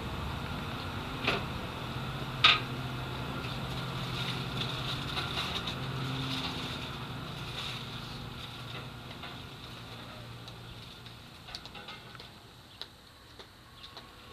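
A motor vehicle's engine running steadily with a low hum that slowly fades away over the second half, with two sharp clicks near the start.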